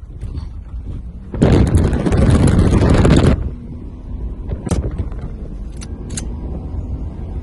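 A vehicle driving over desert ground, heard from inside the cabin as a low steady rumble of engine and tyres. About a second and a half in, a loud rushing noise covers everything for about two seconds, and a few sharp clicks come near the end.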